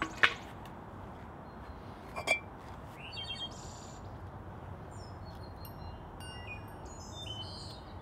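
Bricklayer's steel trowel clinking twice against the mortar board and brick: a sharp clink about a quarter second in and a smaller one about two seconds later. Small birds chirp through the second half over steady background noise.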